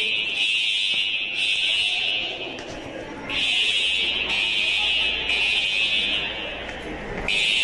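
Building fire alarm sounding a loud, steady high-pitched tone. The tone stops for under a second about two and a half seconds in and again just after seven seconds, then starts again each time.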